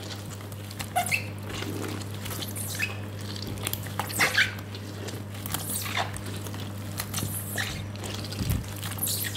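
Hands squeezing wet, salted taro stems, pressing out their itchy juice: irregular wet squishes and crackles over a steady low hum.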